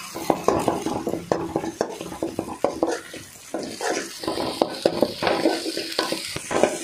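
Metal spatula scraping and tapping against an aluminium kadai in quick, irregular strokes while scrambling eggs in hot oil. The frying eggs sizzle, and the sizzle grows stronger about halfway through.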